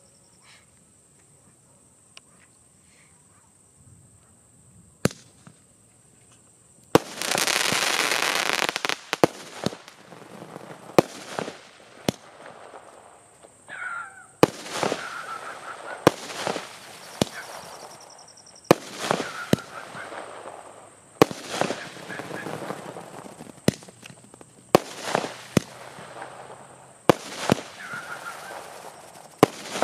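120-shot sky shot firework cake firing. About 7 s in, a loud rushing hiss lasts about two seconds. Then shells go off one after another, a sharp crack every one to two seconds, each followed by a crackling burst.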